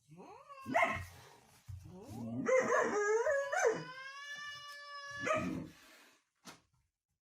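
Dog howling: a short rising yowl, then one long, steady howl held for about three seconds that wavers at its start, ending with a shorter call.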